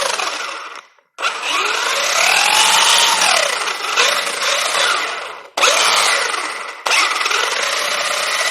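Brushless motor and gear drivetrain of a 1/8 scale RC truggy spun up on the throttle in several runs, its whine rising and falling in pitch with each run, while the pinion-to-spur gear mesh is being set to cure a slight grinding. The sound cuts off suddenly between runs.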